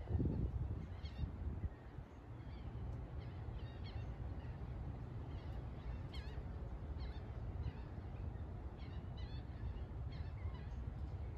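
Distant birds calling: short, wavering high chirps scattered throughout. Under them runs a low rumble of wind on the microphone, strongest in the first second or two.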